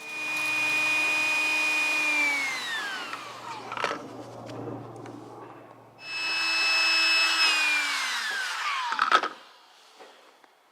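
A small electric motor whining at a steady pitch, then switched off and winding down with a falling pitch, twice. Each run ends in a knock.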